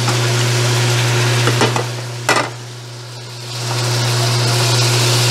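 Marinated chicken pieces sizzling in a hot stainless steel pan as they are turned with metal tongs, which click against the pan twice around the middle. The sizzle drops briefly just after the second click, then comes back louder. A steady low hum runs underneath.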